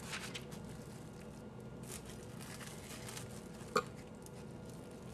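Faint crinkling and rustling of plastic cling wrap as soft nut cheese is pressed down by hand through it, with one short louder sound about four seconds in.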